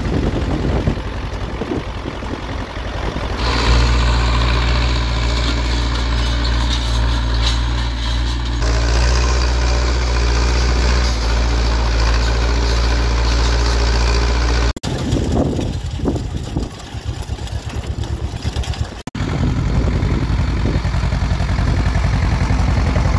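Farm tractor diesel engines working in a field, heard in several cuts. The Ursus C-330's two-cylinder diesel chugs at the start and again near the end. In the middle a Zetor 7745's four-cylinder diesel runs steadily under load.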